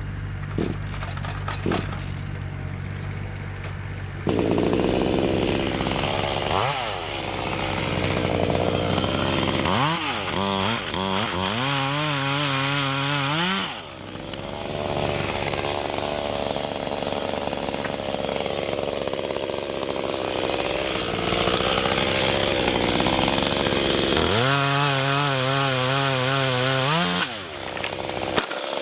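Chainsaw cutting black locust wood: a steady low running for the first few seconds, then a loud cutting sound through the rest. Twice the pitch climbs steeply as the saw speeds up.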